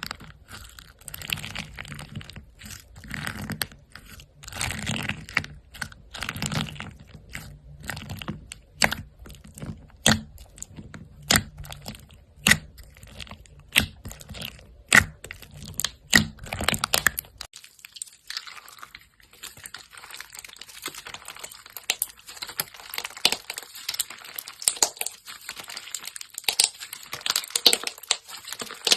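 Slime being squeezed and pressed by hand, giving sharp crackling clicks and pops. About seventeen seconds in the sound changes to a finer, denser crackle.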